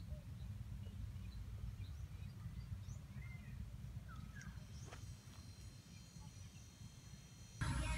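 Wind rumbling on the microphone outdoors, with scattered short bird calls. Music comes in suddenly near the end.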